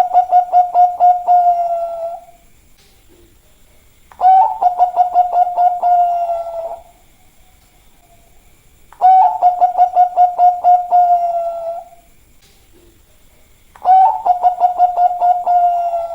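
Bangkok-type zebra dove (perkutut) singing its cooing song over and over. Each phrase is a quick run of about ten pulsed coos that runs into a longer held note, about two and a half seconds long and repeated roughly every five seconds. Three full phrases come after the tail of one at the start, and a fourth is under way at the end.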